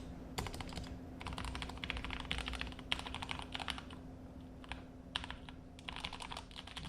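Typing on a custom 60% keyboard with lubed Gateron Yellow linear switches, built in a 3D-printed case without a plate. Keystrokes come in quick runs of clicks broken by short pauses, with a longer pause about two-thirds of the way through.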